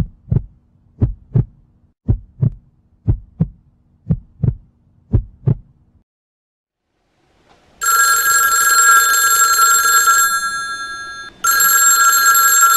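A heartbeat sound effect: paired low thumps, lub-dub, about once a second, stopping about six seconds in. After a short silence a telephone rings twice, each ring a couple of seconds of steady electronic tones with a pause of about a second between them.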